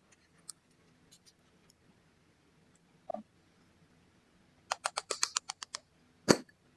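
Slime being squished and stretched by hand, its air pockets popping in sharp little clicks: a few faint pops, then a quick run of about eight pops in a second, and one louder pop near the end.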